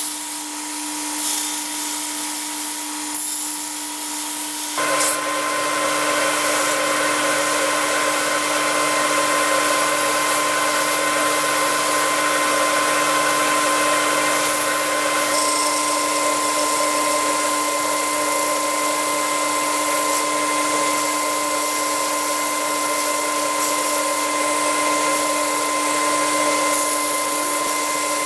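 Belt grinder running, with the wooden handle scales of a cleaver being ground against the sanding belt: a steady motor whine under the hiss of the belt on wood, which gets louder about five seconds in.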